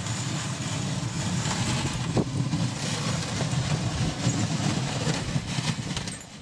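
Ford 9N tractor running steadily while pushing snow with a front blade, with the rough scraping and crunching of snow building up along the blade.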